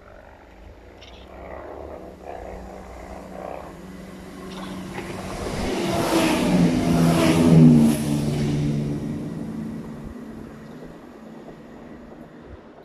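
Passenger train approaching and running through a station without stopping: a rumble that builds, is loudest about seven to eight seconds in with a hum that drops in pitch as the train passes, then fades away.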